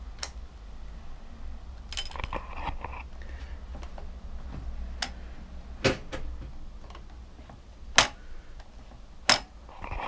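Handling of the motorcycle's ignition key, with a jingle of keys about two seconds in and a handful of separate sharp clicks and knocks. The loudest knock comes about eight seconds in.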